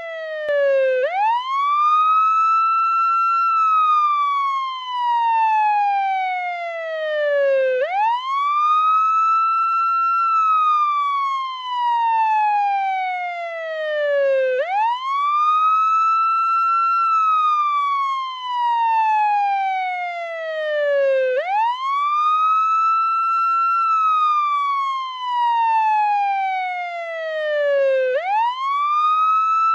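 Portuguese ambulance wail siren: a slow wail that rises quickly, holds briefly at the top, then falls slowly, repeating about every seven seconds.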